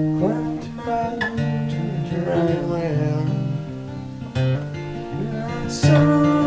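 Acoustic guitar being played, with single picked notes ringing over held chords and a louder chord about six seconds in.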